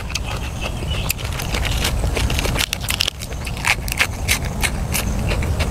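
Close-miked crunchy chewing: a person eating crisp food, with many short crackles and crunches through the whole stretch over a steady low rumble.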